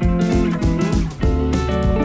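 Music: guitar over a bass line with a steady beat.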